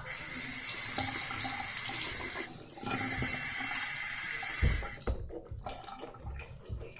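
Water running from a tap into a sink, cut off briefly about two and a half seconds in, then running again until about five seconds in.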